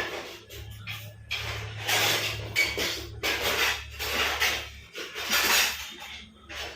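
Kitchen pot and utensils handled while a herbal decoction is being made, in a handful of irregular scraping, clattering strokes. A low hum runs underneath and stops about five seconds in.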